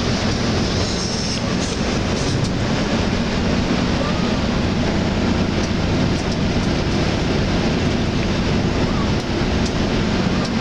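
Steady drone inside the cabin of a Hyundai Universe Xpress Noble coach cruising at highway speed: a low engine hum mixed with constant road and wind noise.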